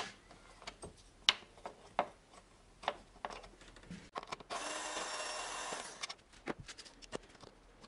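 Hand tools clicking and knocking against engine-bay parts in a string of separate sharp taps. About halfway through, a steady rasping noise runs for about a second and a half.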